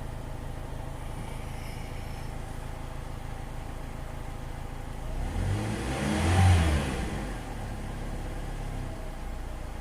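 2005 Chevy Cobalt's 2.2-litre four-cylinder engine idling, revved once about five seconds in, its pitch rising to a peak and falling back to idle a couple of seconds later.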